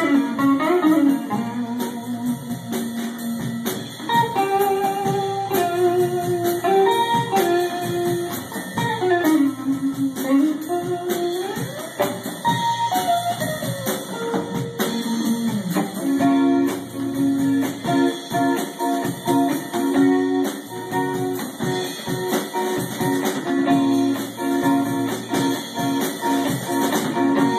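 A rock band playing live: electric guitar, bass guitar and drum kit. A lead line glides up and down in pitch for the first half, then settles into a steady repeated figure from about halfway through.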